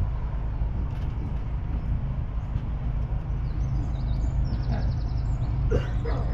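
Massey Ferguson 6290's 6.0-litre six-cylinder diesel engine running steadily.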